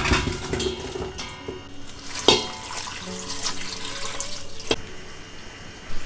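Chunks of vegetables tipped from a glass bowl into an electric pressure cooker's stainless steel inner pot, with a loud knock at the start and another about two seconds in, then water poured into the pot from a glass jug, ending with a sharp knock near the end.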